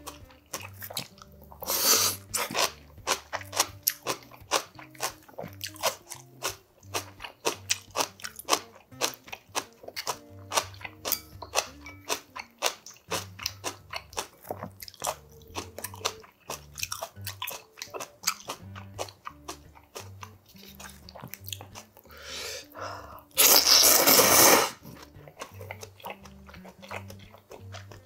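Close-miked eating of noodle soup and side dishes: rapid wet chewing and crunching, with loud slurps of noodles, a short one about two seconds in and a longer one near the end, over quiet background music.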